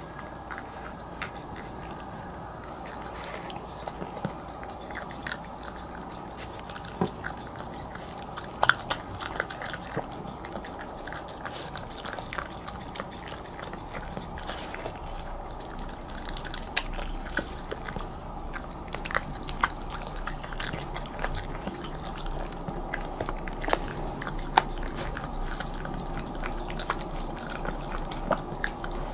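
Bichon Frise dog eating soft tofu steak from a ceramic plate: irregular wet licking, smacking and chewing, with the tongue and teeth clicking against the plate. A steady faint hum sits underneath.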